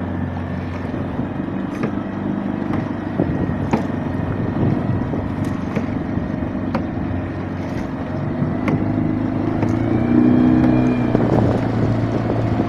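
Small outboard motor running steadily, with water washing past the hull and a few light splashes. It gets slightly louder about ten seconds in.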